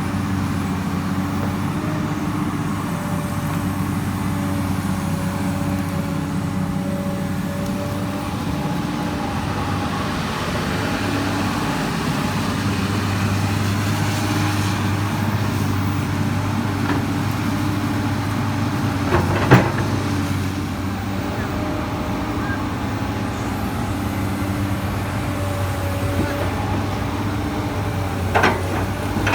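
Komatsu PC200 excavator's diesel engine running steadily under load as it digs, its pitch shifting as the hydraulics work. A sharp metallic clank about two-thirds through, and a few more clanks near the end.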